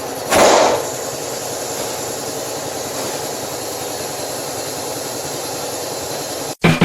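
Steady machine drone in a workshop, with one loud hiss of air lasting about half a second, starting about a third of a second in. It cuts off suddenly near the end.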